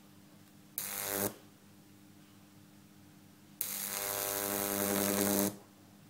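High-voltage arc from a 2 kV microwave oven transformer power supply, struck between its output lead and an insulated probe: a harsh buzz lasting about half a second a little under a second in, then a longer one of about two seconds near the end. Each starts and stops abruptly as the gap closes and opens.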